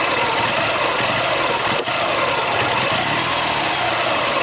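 Ural motorcycle's flat-twin engine idling steadily, with a ringing, clacking noise that the rider places at the timing gears, not a cylinder. He suspects the engine has overheated, possibly shifting the gear clearances.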